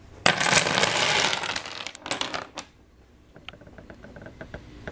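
Stacked wooden blocks collapsing: a sudden dense clatter of many blocks striking each other and the table, tapering off over about two seconds, then a few scattered clicks as the last pieces settle.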